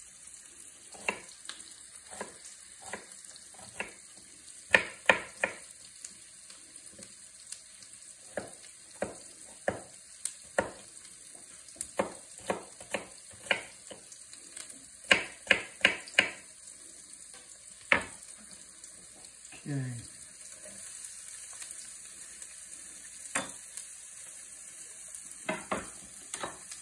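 A chef's knife chopping onion on a wooden cutting board: irregular sharp knocks, some in quick runs of three or four. Under them, the steady sizzle of onions frying in butter and oil in a pan.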